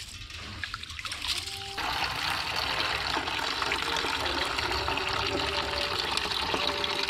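Hands swishing soaked rice in water in a steel plate, then, about two seconds in, a steady stream of rice-washing water poured off the tilted plate into a plastic bucket.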